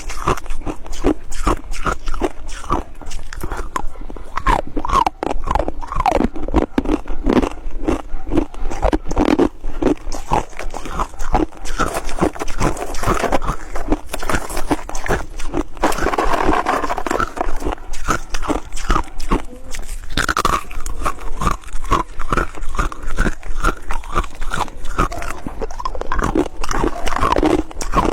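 Close-up crunching and chewing of hard and soft white ice, a dense run of crisp crunches several times a second.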